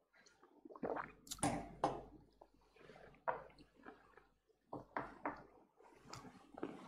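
Light, irregular clinks and taps of a drinking glass and dishes being handled at a kitchen counter, with small wet sipping sounds.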